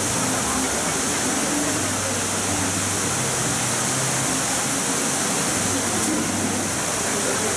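Steady rushing and splashing of water falling over the rim of an ornamental fountain basin.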